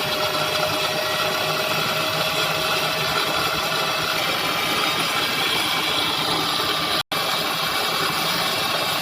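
Tool room milling machine running steadily, its spindle drive and gearbox giving an even mechanical hum with several steady tones. The sound cuts out completely for a split second about seven seconds in.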